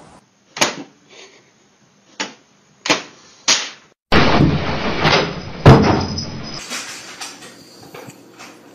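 A handful of sharp clicks from an office printer that a cat is pawing at. Then a loud, noisy stretch with one heavy thump about halfway through as a cat jumps from a TV at a window, followed by faint knocks.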